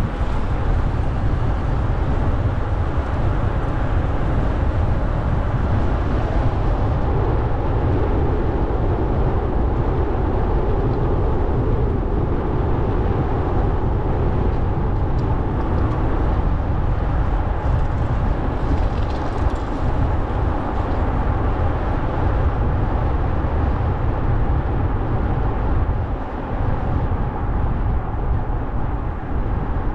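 A car driving along a paved road: a steady low road and engine rumble.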